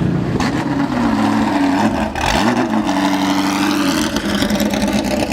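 Maserati MC12's V12 engine running at a steady idle, with one brief rev that rises and falls about two seconds in.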